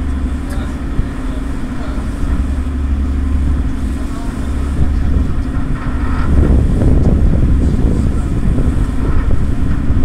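A passenger ferry's engines droning steadily underway, a deep constant hum with wind and water noise over it, growing a little louder about six seconds in.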